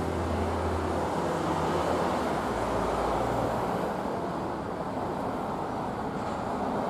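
Steady rushing background noise with no distinct events, like wind or distant traffic noise.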